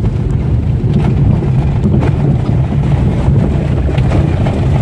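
Old-model Maruti Alto's front suspension knocking and rattling over a rough road, heard over a steady low road and tyre rumble. The owner takes the noise for worn shock absorbers and lower-arm bushes.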